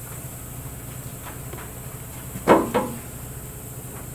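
Two sharp metallic clunks about a quarter second apart, near the middle, as the rear axle with its leaf springs is shifted against the truck's steel frame, over a steady low hum.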